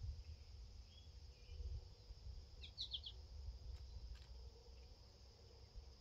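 Quiet outdoor ambience: a steady high insect drone over a low rumble. Short high chirps come in, with a quick run of four about three seconds in.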